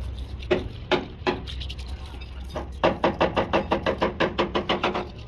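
Hammer blows on metal: three separate strikes, then a quick even run of about a dozen strikes, roughly five a second, with a ringing note under them.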